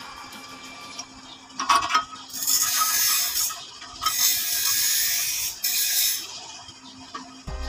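Ratchet wrench clicking in three spells of about a second each, turning a bolt on a bus clutch pressure plate. Music comes in near the end.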